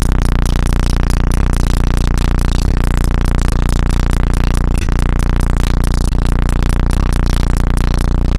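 A high-output subwoofer system playing a steady, very loud low bass tone, heavily distorted and overloading the microphone; it stops right at the end.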